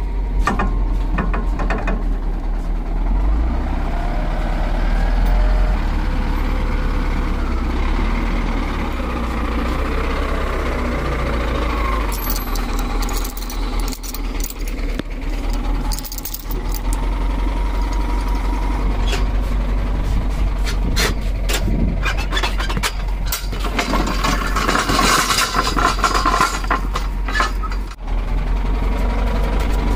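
Kubota walking tractor's single-cylinder diesel engine running steadily, with scattered metal clanks and rattles over it.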